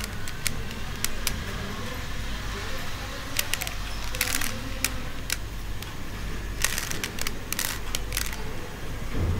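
A plastic 3x3 Rubik's cube being turned by hand: short plastic clicks and rasping turns of its layers, coming irregularly in quick clusters.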